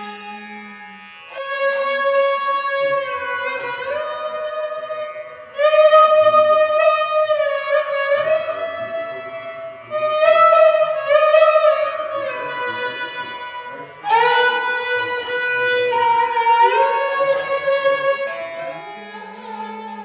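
A bowed, fretted Indian string instrument of the esraj family is played solo. It draws a slow melody of held notes joined by slides, in four phrases that each begin with a strong bow stroke.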